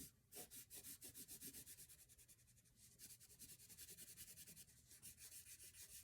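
Crayon rubbing across paper in quick back-and-forth colouring strokes, about six or seven a second, faint and scratchy.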